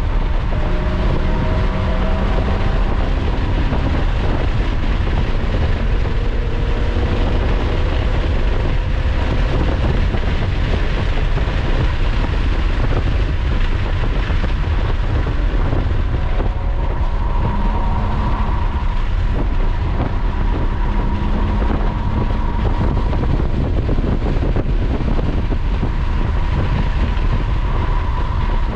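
Lotus sports car at track speed, heard from inside the cabin: the engine note rises in pitch as it accelerates over the first several seconds, over heavy road and wind noise. Later it settles to a steadier note as the car slows for the next corner.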